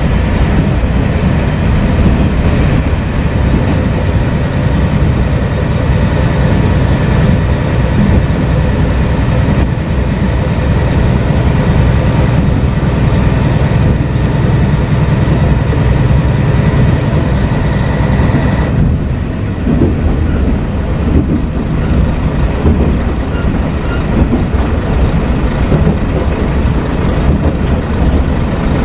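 Kashima Rinkai Railway 6000-series diesel railcar running under way, heard from inside the passenger cabin: a steady loud rumble of engine and wheels with a higher whine over it. About two-thirds of the way through, the whine and upper hiss cut off abruptly, leaving a lower rumble.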